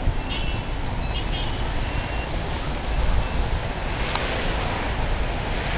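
Steady outdoor road-traffic noise, a low rumble without a clear pitch.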